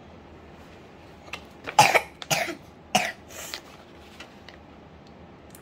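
A child coughing several times in quick succession, starting a little over a second in, the second cough the loudest.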